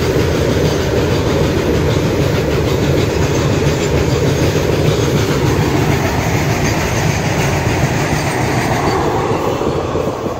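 BOXN open freight wagons of a goods train rolling past at speed: a steady, loud rumble and clatter of steel wheels on the rails.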